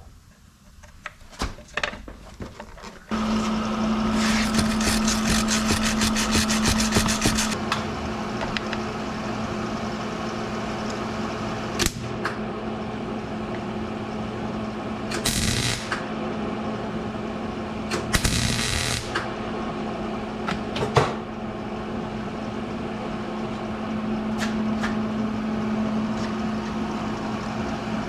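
MIG welder arc crackling as a broken stud is welded onto a car vent wing window frame: one run of about three and a half seconds, then two short bursts later on. Under it a steady hum starts about three seconds in and carries on throughout, with a few sharp clicks.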